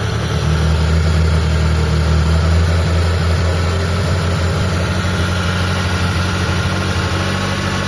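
Mitsubishi 4G13 four-cylinder engine idling steadily while its carburettor's idle mixture is being adjusted.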